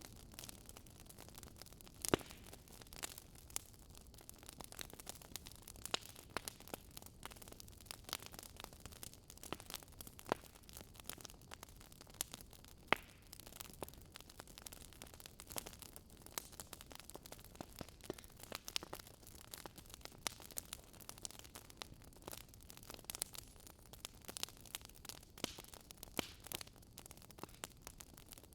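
Wood fire crackling in a fireplace: irregular sharp pops and snaps over a soft steady hiss, with a couple of louder pops.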